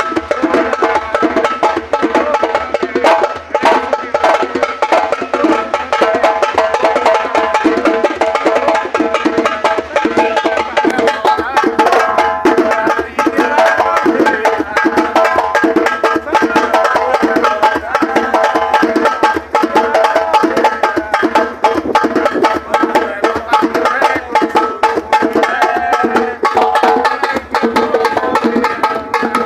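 Drum music: fast, continuous drum strokes over steady pitched tones.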